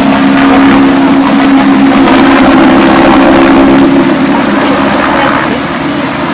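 An engine running at a steady pitch, loud at first and fading about four seconds in.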